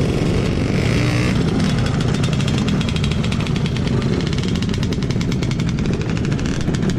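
Motor scooter engine running steadily, with a fast, even pulsing in its note.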